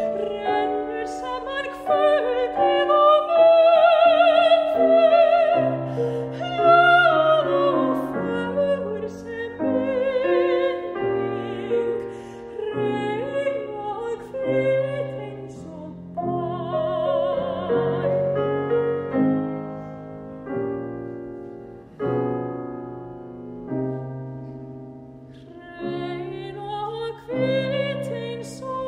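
Classical soprano singing an art song with a wide vibrato, accompanied by a grand piano. About two-thirds in the voice drops out and the piano plays on alone for several seconds, then the voice comes back near the end.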